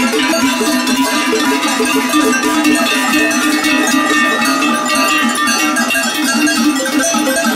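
Many large cowbells on the necks of a passing herd of cattle ringing continuously, a dense jangle of overlapping bell tones at many different pitches.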